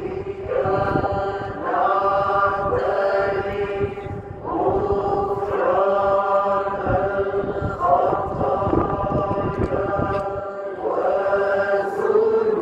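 Voices chanting a slow liturgical hymn in long held phrases, each phrase beginning with a slide up in pitch, over a steady held lower note.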